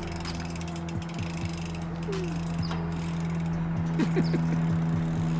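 Mountain bike's rear freehub ticking rapidly as the bike coasts, the pawls clicking over the ratchet.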